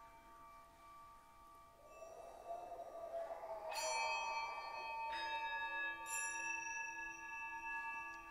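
Ambient music of ringing metal percussion: bell-like tones hang on, a wavering swell builds from about two seconds in, then bells or singing bowls are struck about four, five and six seconds in. One of them carries a slow pulsing beat in a low tone.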